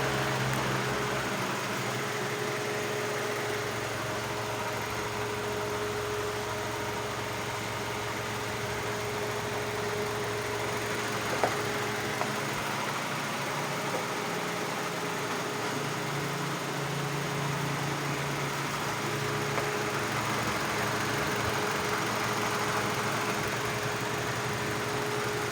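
Hyundai Elantra's four-cylinder engine idling steadily with an even hum, now running after a no-crank, no-start fault. A couple of faint clicks come about halfway through.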